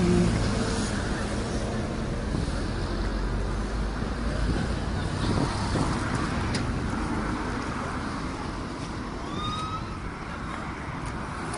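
Road traffic noise: a steady rumble of passing cars, with rustle and knocks from the handheld phone being moved. A short rising whine comes about nine and a half seconds in.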